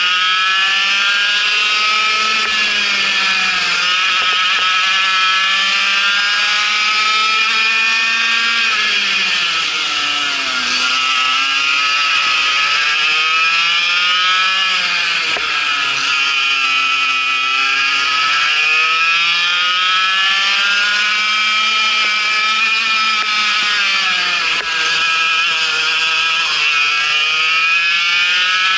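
Vortex MiniRok 60 cc two-stroke kart engine at high revs, around 11,000 to 12,000 rpm, its pitch climbing steadily along the straights and dropping sharply four times as the kart slows for corners, then climbing again.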